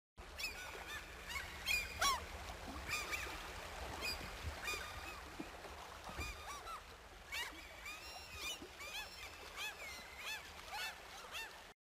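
A flock of waterfowl on a lake calling. There are many short honking calls, overlapping and some bending up and down in pitch, over a faint steady low rumble.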